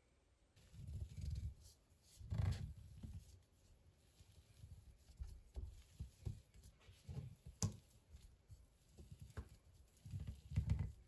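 Rolling pin worked back and forth over dough on plastic film on a wooden countertop: low rumbling strokes about a second long, with light crinkling of the plastic and small knocks between them.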